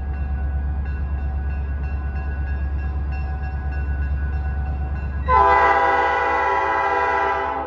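Conway Scenic 255's diesel engine rumbles steadily as the locomotive approaches. About five seconds in its air horn sounds one long, loud chord, held for a couple of seconds and then cut off, warning of the road crossing ahead.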